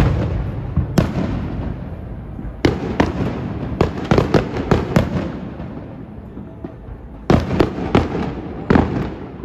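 Aerial fireworks bursting overhead: a loud bang at the start, then a run of sharp cracks and booms with rumbling echoes between them. There is a lull about six seconds in, then two more quick clusters of bangs near the end.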